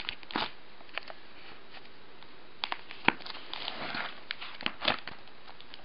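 Pages of a spiral-bound instruction booklet being handled and turned: scattered soft rustles and small clicks, with one sharper click about three seconds in.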